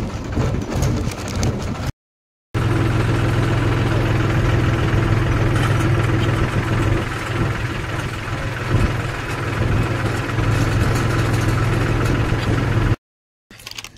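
Tractor's diesel engine running steadily as the tractor drives along, heard from on board close to the engine. The engine sound breaks off into silence for half a second twice: about two seconds in and near the end.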